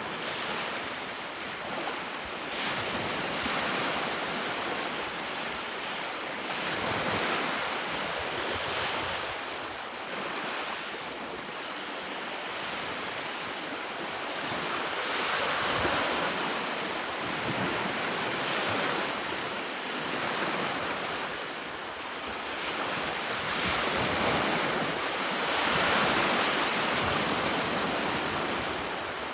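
Sea waves washing onto a shore, the surf rising and falling in slow swells every few seconds.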